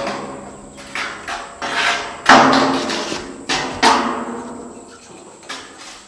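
Corrugated metal roofing sheets banging and clattering as they are handled, each bang ringing on. There are about eight bangs at uneven spacing, the loudest about two seconds in, with fewer near the end.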